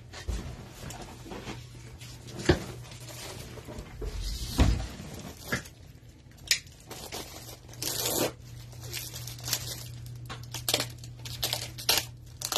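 Plastic trading-card pack wrapper crinkling and tearing, with scattered light clicks and taps as cards are handled, over a low steady hum.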